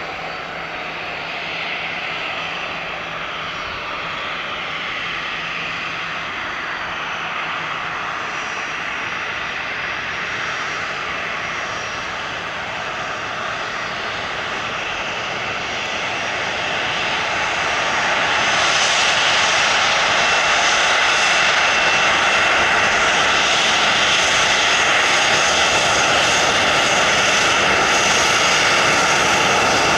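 Boeing 737-700 BBJ's CFM56-7 turbofan engines running at low power as the jet taxis and turns onto the runway. About two-thirds of the way through the engines spool up over a couple of seconds to a louder, steady run with a high fan whine, as thrust is set for takeoff.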